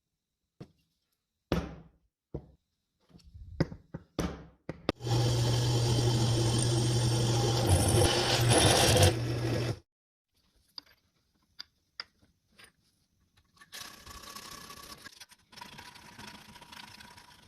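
A few clicks and knocks, then a power tool runs loudly and steadily with a low hum for about five seconds and stops abruptly. Fainter runs of the tool follow near the end.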